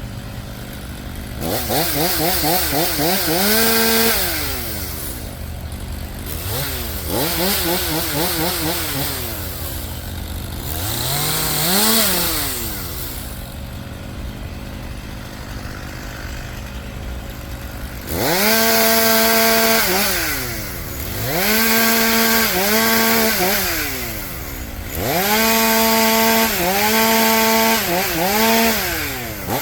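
Chainsaw revved from idle to full throttle about six times and held there while cutting oak limbs, its pitch sagging slightly under load, then dropping back to idle between cuts.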